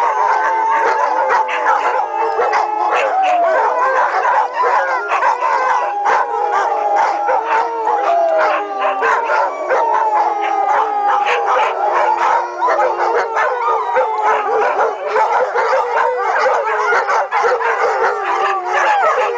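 A pack of dogs howling together: many long, overlapping howls at different pitches, with short barks and yips scattered through them.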